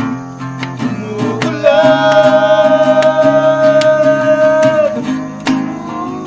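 Acoustic guitar strumming chords while a man sings along, holding one long note from about a second and a half in until about five seconds in.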